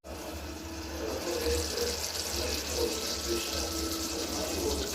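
Paneer masala gravy cooking in butter and oil on a slow flame, giving a steady sizzling, bubbling hiss.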